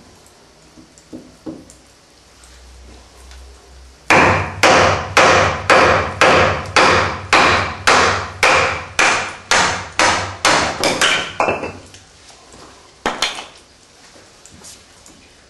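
Batoning: a baton striking the spine of a Fox Trakker kukri-style knife, driving its 6 mm blade down through a piece of firewood on a chopping block. About fifteen sharp, evenly spaced strikes, two a second, begin about four seconds in and stop near twelve seconds, followed by a single knock about a second later.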